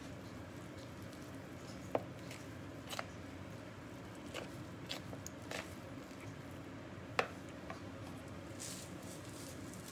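Hand mixing a ground ham, egg and breadcrumb croqueta mixture in a plastic bowl: quiet squishing with a few light, sharp clicks scattered through it.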